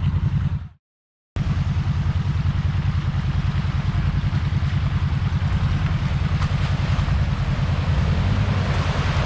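Off-road 4x4 engine running with a low, fast-pulsing rumble, mixed with rushing wind-like noise on the microphone. The sound cuts out completely for about half a second about a second in, then carries on.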